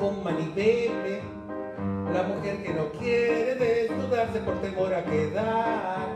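A man singing with held, wavering notes, accompanied by piano.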